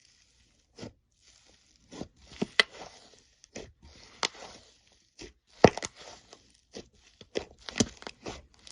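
Slime being squeezed and stretched by hand, giving irregular sticky pops, clicks and crackles that start about a second in.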